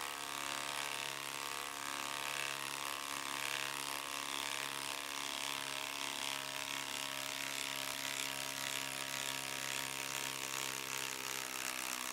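Ryobi HP 3/8-inch cordless impact wrench hammering steadily as it drives a lag screw down into a wooden stump, without a break.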